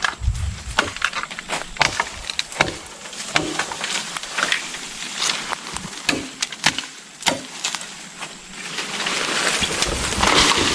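Bamboo being chopped and split by hand: irregular sharp knocks and cracks, a dozen or more, with a longer rustling noise near the end.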